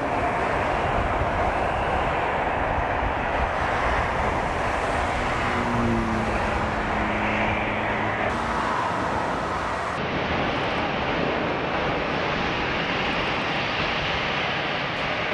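Jet airliner engines running at high power during a takeoff, a steady loud rush of noise, with an abrupt change in tone about ten seconds in.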